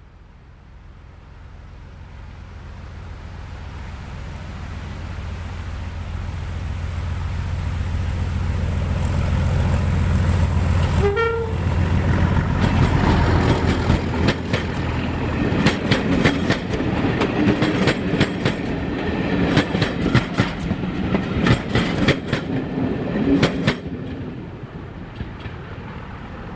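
Class 31 diesel locomotive, its English Electric V12 engine running under power, approaching and passing. The engine drone grows steadily louder, a short horn note sounds about eleven seconds in, then the wheels clatter over rail joints for about twelve seconds before the sound drops away.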